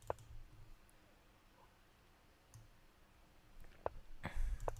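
Computer mouse clicking as chess moves are made: a single click at the start, then a few quick clicks close together near the end, with a low thud among them.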